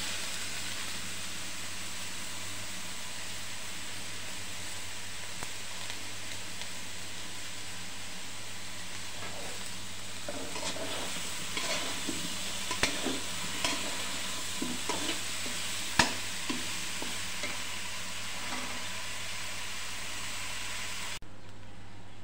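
Eggplant pieces frying in oil in a kadai, with a steady sizzle. Partway through, a metal spatula stirs them, scraping and clacking against the pan, with one sharp clack standing out.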